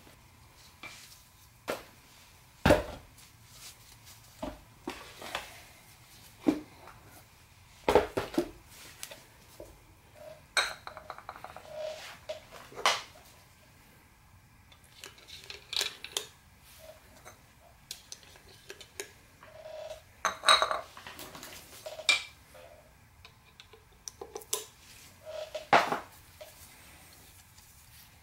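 Scattered metallic clinks and knocks of tools and engine parts being handled on a Subaru engine block during piston installation, some with a short ringing tail, the loudest a few seconds apart.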